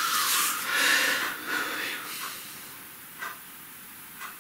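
A person breathing out heavily through the mouth and nose, a breathy rush lasting about two seconds, followed by a quiet room with a couple of faint clicks.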